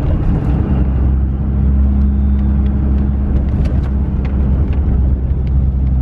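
Cab interior sound of a 2005 Dodge Ram 2500 with its Cummins turbo-diesel, cruising at steady speed: a constant low engine drone mixed with road noise, with a few faint ticks.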